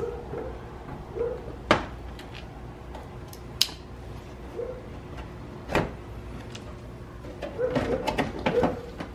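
Plastic car bumper cover being worked loose and pulled off: scattered sharp clicks and knocks with short squeaks of plastic rubbing, busier near the end.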